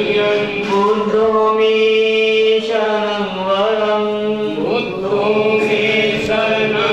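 Slow Buddhist chanting in Pali, a male voice leading over a microphone and loudspeaker with the congregation chanting along. Long held notes slide from one pitch to the next.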